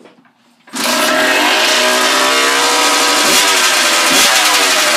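Kawasaki KX100's single-cylinder two-stroke engine firing up about a second in on choke, then running loud with two quick blips of the throttle. It runs without a silencer.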